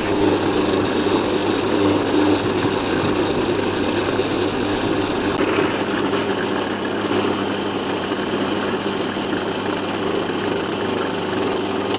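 Electric mixer grinder motor running steadily at full speed, its steel jar grinding chopped fresh coconut into powder.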